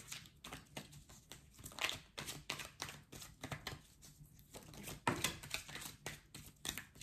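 Tarot cards being handled: irregular snaps and rustles of card stock as cards are pulled from the deck and laid down.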